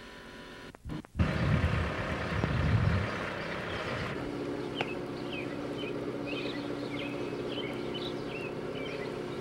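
Outdoor camcorder sound: a brief break about a second in, then a low rumble for a couple of seconds, settling into a steady low hum with birds chirping in short, quick notes over it.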